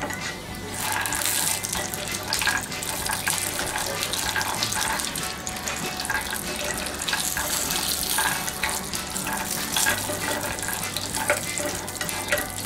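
Cashew nuts sizzling in oil in a frying pan as a plastic spatula stirs them, with frequent light clicks of nuts and spatula knocking against the pan.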